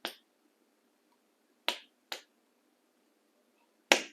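Stretchy slime being pressed and squeezed into its tub, letting out four short, sharp pops of trapped air: one at the start, two close together in the middle and a loud one near the end.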